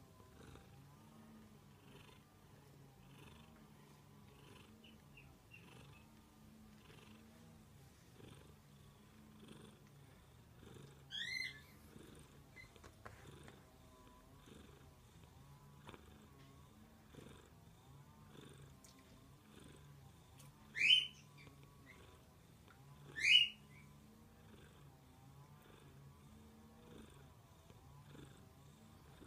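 Tabby cat purring steadily in slow breathing cycles. It gives three short, high chirping meows: one partway through, then two close together later on, louder than the purr.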